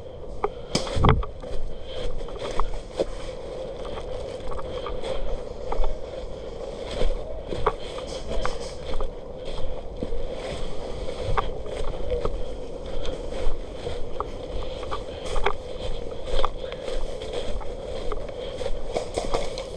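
Scattered sharp clicks and snaps of airsoft guns firing across the field, at irregular intervals over a steady hum, with one heavier thud about a second in.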